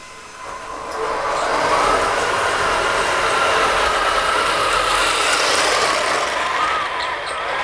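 A 1/16-scale RC M8E2 cargo tractor on Heng Long tank running gear driving over carpet: its electric drive motors and gearboxes whirr together with the rattle of the plastic tracks. The sound builds up over about the first second as it comes closer, then runs steadily.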